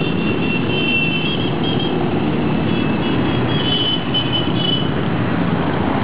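A procession of motorcycles, Harley-Davidson cruisers and sport bikes, riding past with their engines running as a steady rumble. A thin high whine sounds over it twice.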